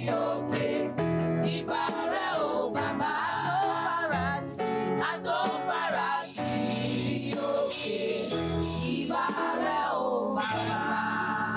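Women's choir singing a gospel worship song over instrumental accompaniment with a steady bass line.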